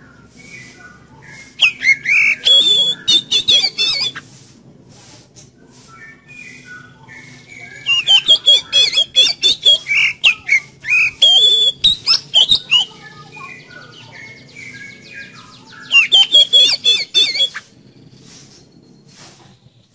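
Oriental magpie-robin (kacer) singing: three loud bursts of fast, varied whistled notes mixed with harsh chattering notes, about a second and a half, five seconds and a second and a half long, with softer scattered phrases between.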